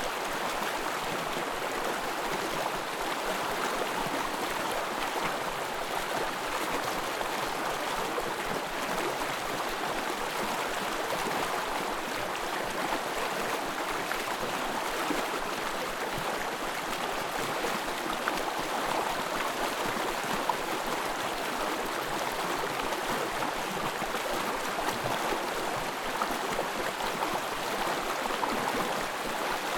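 Small forest stream flowing, a steady even babble of running water.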